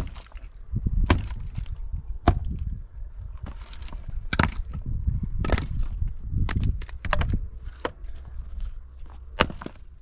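Small axe chopping firewood on the ground: sharp, irregularly spaced blows into the wood, roughly every one to two seconds, about seven in all.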